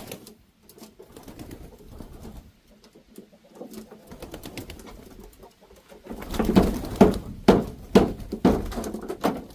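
Chickens in a coop making low, cooing clucks. About six seconds in comes a louder run of roughly two low calls or knocks a second.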